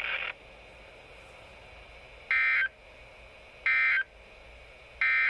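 NOAA Weather Radio SAME end-of-message code, played through a Midland WR300 weather radio's speaker: three short bursts of two-tone digital data warble, evenly spaced about a second and a half apart, signalling the end of the Required Weekly Test broadcast.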